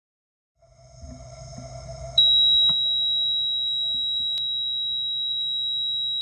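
Alti-2 Mercury Crimson audible altimeter sounding its fourth free-fall alarm (FF-4): a single high-pitched steady tone held without a break for several seconds, the final freefall warning. A low hum builds up just before the tone starts.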